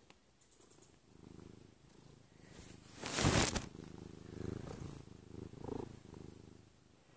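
A pet purring in slow, rising and falling pulses, with a brief loud rushing noise about three seconds in.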